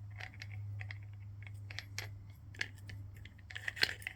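Light metallic clicks and taps as the threaded outer flange nut is spun by hand down the angle grinder's spindle onto the flap disc, coming more quickly near the end, over a low steady hum.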